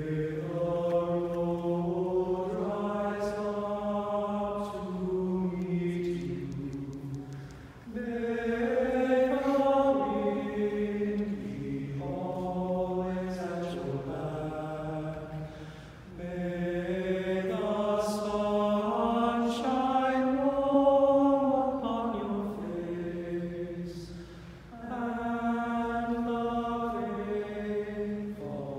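A choir singing slow, held chords in long phrases of about eight seconds each, with a brief dip between phrases.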